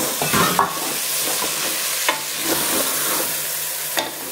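A spatula stirring soaked basmati rice through sizzling masala in a metal pressure cooker pan, with a steady sizzle and a few short scrapes of the spatula against the pan.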